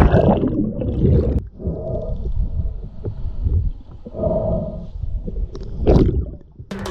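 Underwater sound as a spearfisher plunges into the sea: rushing water and bubbles from the entry for about the first second and a half, cutting off suddenly. Then a muffled underwater rumble with low gurgling swells, and a short rush of bubbles near the end.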